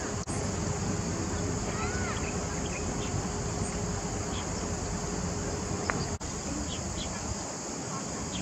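Steady high-pitched outdoor hiss over a creek bed, with a few faint short chirps and a brief whistled glide about two seconds in.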